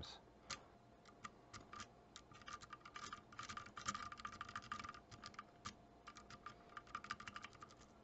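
Faint, rapid clicking and scraping of a rake pick being worked in and out across the pin tumblers of a Master Lock No. 5 padlock under light tension, busiest in the middle.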